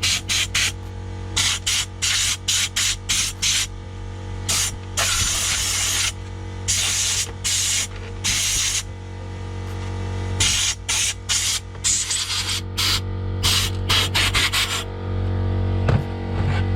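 Compressed air blown in short hissing puffs over salvaged graphics cards to clear the dust. There are two longer blasts of a second or two near the middle. A steady low hum runs underneath.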